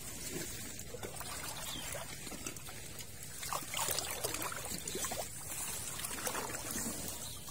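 Water trickling and dribbling steadily, with scattered small splashes and drips.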